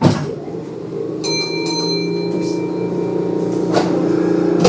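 Kintetsu 9200 series electric train pulling away. A knock at the start, then a two-stroke chime about a second in, over the steady hum of its field-chopper-controlled traction motors that grows louder. A couple more knocks come near the end.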